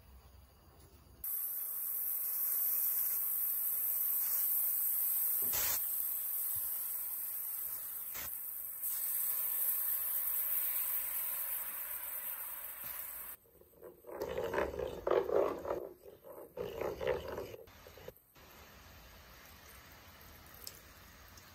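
Dark sauce sizzling hard in a hot non-stick pan, a loud steady hiss with two sharp knocks about five and eight seconds in. Then thickening sauce bubbling and spluttering in uneven bursts for several seconds before it settles.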